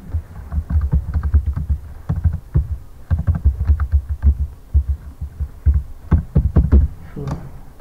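Typing on a computer keyboard: an irregular run of keystrokes, each a short click with a dull low thump, thinning out near the end.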